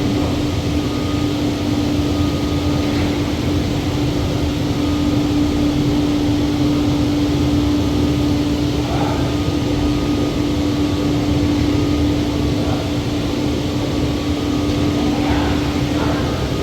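Steady mechanical drone with one constant humming tone over a broad rushing noise.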